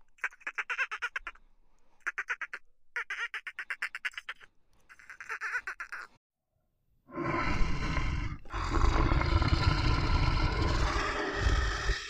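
Dolphins chattering in four short bouts of rapid pulsed clicks that sound like quacking buzzes. After about a second of silence comes a loud, deep, rough roar with a brief break partway through: a monster-style roar of the kind dubbed onto an animated dinosaur.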